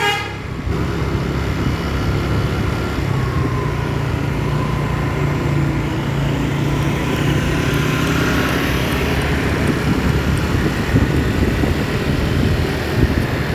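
Road traffic: a vehicle engine's hum swells and fades in the middle, over steady road and wind noise.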